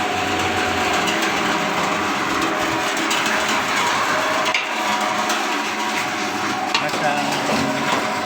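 Electric emping and sale flattening machine running: a steady motor hum with a clatter of small knocks and clicks.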